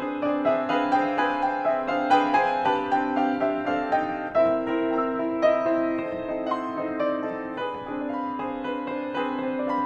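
Background piano music, notes struck one after another at a steady pace over lower held notes.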